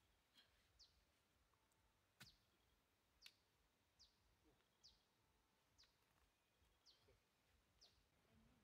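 Near silence outdoors, broken by a bird's short, falling chirps repeated about once a second.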